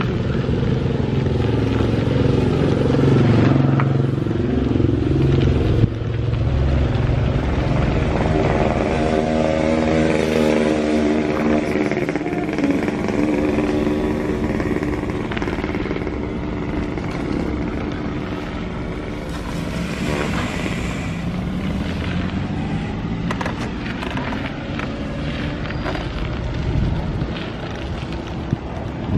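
Small motorcycles passing one after another on a narrow lane, each engine note rising and falling in pitch as it goes by.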